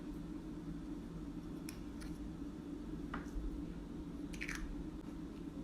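A few faint clicks and a brief rustle from a small plastic glitter container being handled and shaken out, over a steady low room hum.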